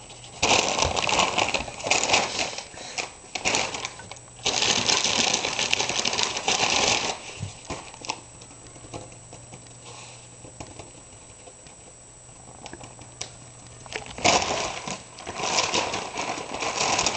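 A crumpled carry-out bag crinkling and rustling as a cat paws, bites and rolls on it and a hand shakes it. It comes in three long bursts, with a quiet stretch of several seconds in the middle.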